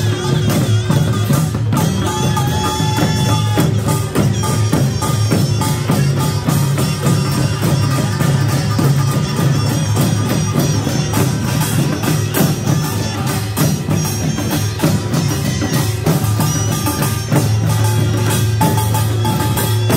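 Korean pungmul farmers' band playing: barrel drums beaten in a fast, dense, driving rhythm, with metallic ringing tones over the drumming.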